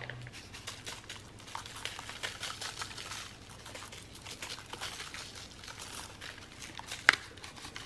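A paper packet of dry ranch dip mix being shaken, with the powder sprinkling onto a raw chuck roast: many faint light ticks and rustles. One sharp tap about seven seconds in.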